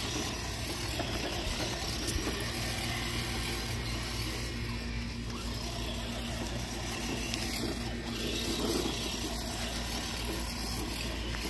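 Toy remote-control car's small electric motor and gears whirring steadily as it drives across grass.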